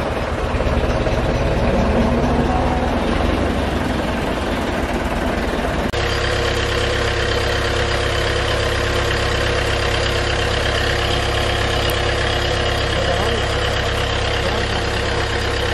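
Massey Ferguson diesel tractor engine running steadily while it powers belt-driven tubewell pumps, with water gushing from the outlet pipe into a concrete tank. The sound changes abruptly about six seconds in and then settles into an even engine hum over the rush of water.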